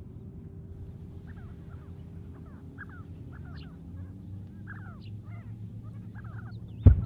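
A flock of sandgrouse calling: many short, curved chirping calls overlapping one another over a steady low rumble. A sudden loud thump comes just before the end.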